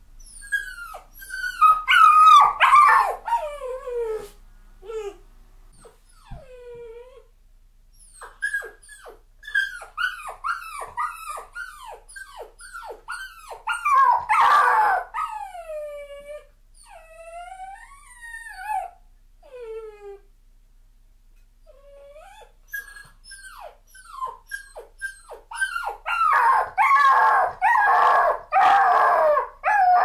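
A puppy crying: a long series of short, high cries, most sliding down in pitch, coming in loud runs near the start, in the middle and densely near the end, with quieter spells between. The crying is distress at being left alone, not pain.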